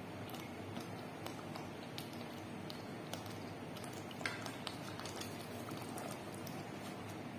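Thick hot alamang (shrimp paste) sauce simmering in a pot, with scattered small pops and one louder pop about four seconds in over a steady low noise. Near the end a wooden spatula stirs it.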